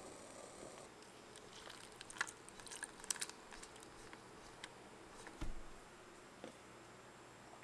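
Scattered small wet clicks and squishes as boiled soapnut berries and their soapy liquid are tipped into a cheesecloth-lined strainer, with a low thump about five and a half seconds in.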